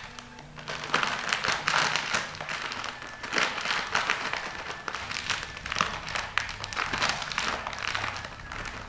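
A shiny foil snack bag crinkling and crackling as it is squeezed and kneaded between the hands.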